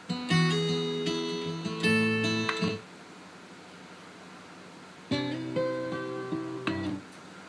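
Guitar music playing from a CD in an RCA RS2664 compact stereo, in two short bursts of about two seconds each with a pause of about two seconds between as the player skips to the next track. The freshly cleaned CD player is reading and playing the disc.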